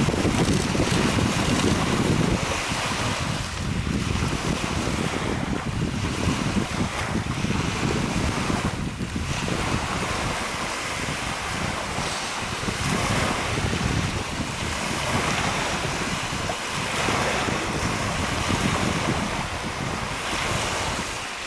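Small lake waves lapping and breaking on a pebbly shore, with wind rumbling on the microphone, heaviest in the first two seconds.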